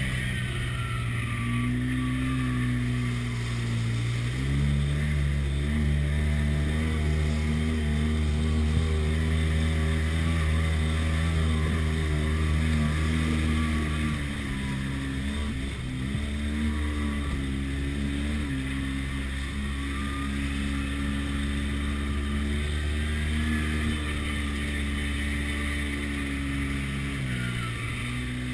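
Side-by-side UTV engine running while driving a rough trail. The engine note drops about four seconds in, then holds fairly steady with brief dips in pitch a few times as the throttle is let off and picked up again.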